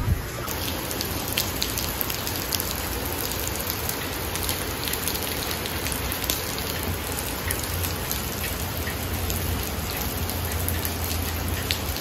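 Heavy rain pouring down steadily, a dense even hiss with many separate drops striking nearby surfaces.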